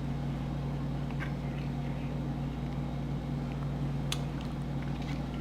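Steady low electrical hum, with a few faint clicks about a second in and again past the middle.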